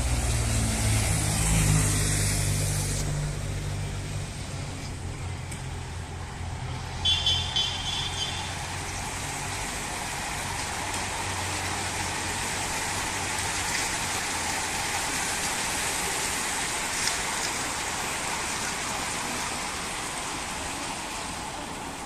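A motorcycle's engine runs as it rides past, dying away about eight seconds in, with a brief high-pitched pulsing tone about seven seconds in. A large pack of racing bicycles follows, a steady hiss and whir of tyres and freewheels.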